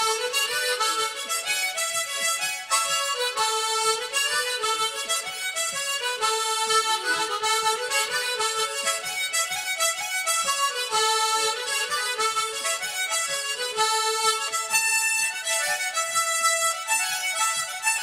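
Harmonica playing a tune, a quick run of notes with a few longer held ones.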